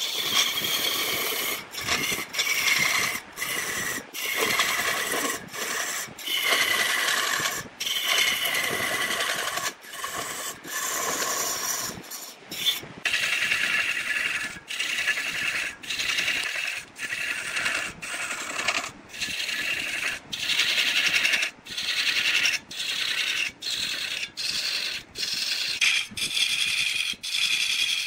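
Wood lathe turning: a cutting tool scraping against spinning wood in a pitched, scraping cut whose tones drift slowly, broken about once a second by very short gaps.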